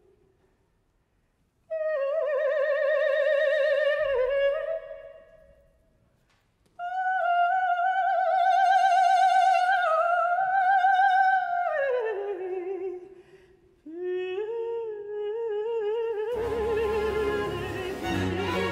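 A countertenor singing unaccompanied in three long, high phrases with wide vibrato, separated by short silences; about sixteen seconds in, the baroque orchestra's strings come in beneath the voice.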